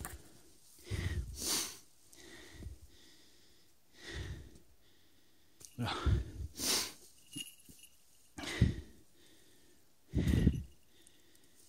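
A person breathing hard close to the microphone: separate heavy, wheezy breaths about every two seconds.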